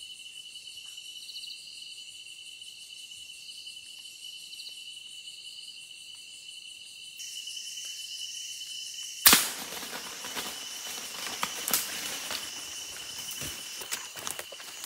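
Crickets trilling steadily at night. About nine seconds in, a single sharp shot cracks out, followed by rustling and footsteps through dry leaf litter.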